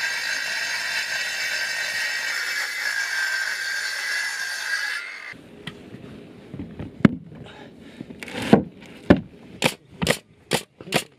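Handheld circular saw cutting through an OSB sheet, running steadily, then cutting off about five seconds in. After a few knocks, a pneumatic nailer fires nails into the OSB sheets with sharp shots, about two a second near the end.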